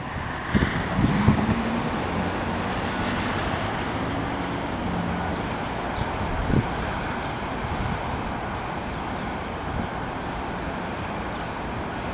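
Steady rumble of a departing electric commuter train (SEPTA Silverliner V) fading out of view, mixed with wind on the microphone. A faint hum runs through the first few seconds, and a single short knock comes about six and a half seconds in.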